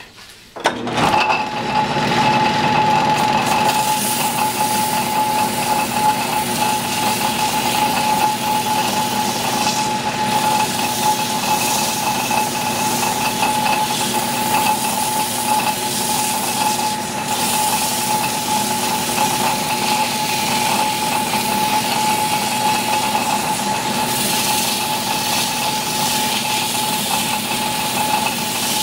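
Metal lathe switched on about a second in and running steadily, with a strip of coarse 80-grit emery cloth pressed against the spinning rusty steel pipe to scour off the rust: a steady motor tone with a scratchy hiss of abrasion over it.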